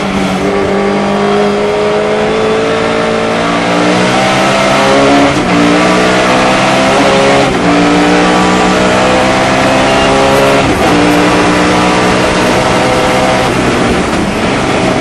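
Sunbeam Lotus race car's 2.2-litre four-cylinder engine pulling hard at racing speed, its note climbing through the revs and dropping at upshifts about five, seven and a half, and eleven seconds in.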